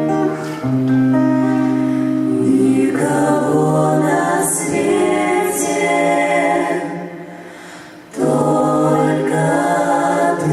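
Vocal ensemble singing long held notes in harmony, the chords changing every second or two. The singing fades out about seven seconds in, then comes back in full about a second later.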